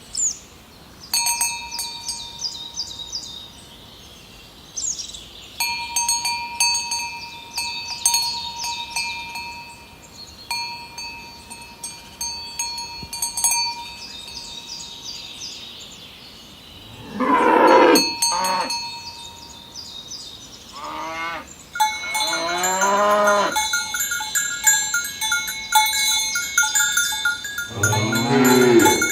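Cowbells clanking unevenly as the cows walk. From about halfway in, cows moo four or five times, the first moo the loudest, while the bells go on clanking more busily toward the end.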